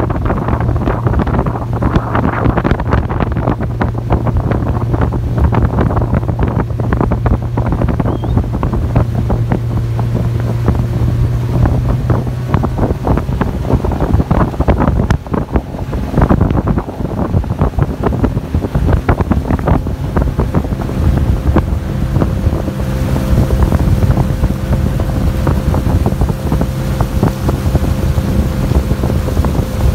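A 30 hp outboard motor pushing a small aluminium boat at speed, running steadily, with heavy wind buffeting on the microphone and water rushing along the hull. The engine's pitch shifts about two-thirds of the way through.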